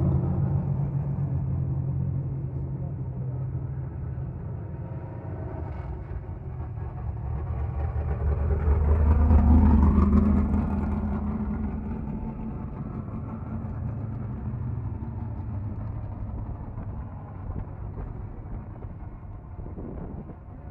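Race car engines at a drag strip: loud and low at the start and fading, swelling again about nine seconds in, then dying away.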